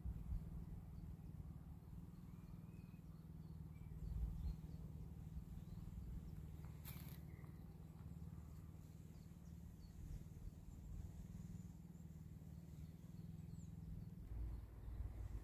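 Quiet outdoor ambience: a steady low rumble with faint, scattered bird chirps, and a single short click about seven seconds in.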